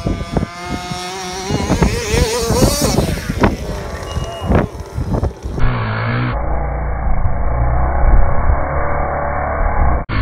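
HPI Baja 5T's small two-stroke petrol engine revving as the RC truck drives across grass, its pitch rising and falling with the throttle. About halfway through, the sound changes abruptly to a steadier, lower drone.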